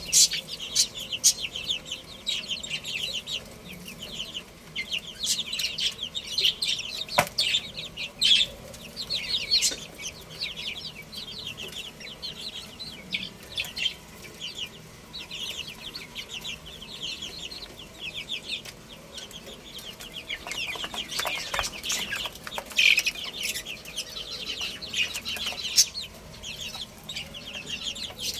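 A group of baby chicks peeping without pause, many short high chirps overlapping, with a few sharp clicks in between.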